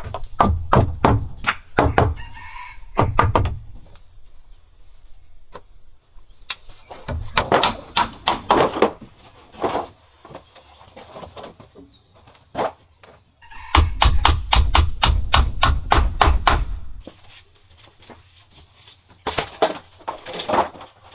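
Rapid knocks in four bursts of quick strikes, each run lasting two to three seconds, with a heavy thud under each strike.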